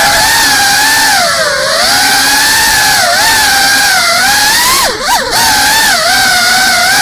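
GEPRC Cinelog35 3.5-inch cinewhoop's brushless motors and ducted propellers in flight, a steady high whine whose pitch wavers up and down with the throttle. About five seconds in the pitch drops sharply and swings back up, the sound briefly dipping in loudness.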